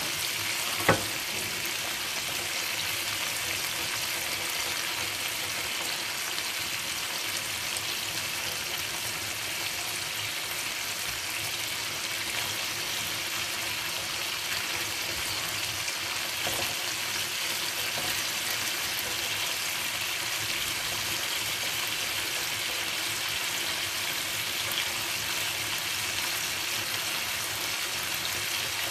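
Chicken pieces frying in oil in a pan: a steady sizzle, with one sharp knock about a second in.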